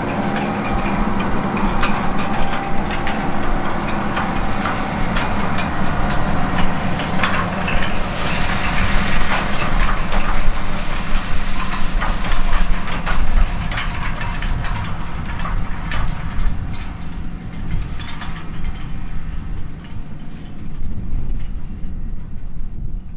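Diesel engine of a large John Deere field machine running steadily, over a busy clatter of clicks and knocks from the working machinery; it grows quieter near the end.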